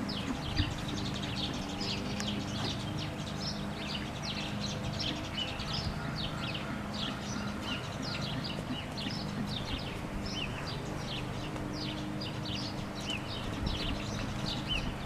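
Many birds chirping and singing without a break, over a low steady hum.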